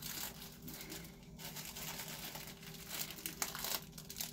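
Pink mailer packaging crinkling and rustling as it is handled and opened, with many small crackles.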